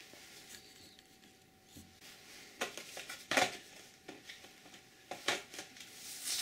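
Card-and-plastic blister packaging of a pair of chainsaw files handled in the hands: light rustling with a few sharp clicks and crinkles, busier near the end.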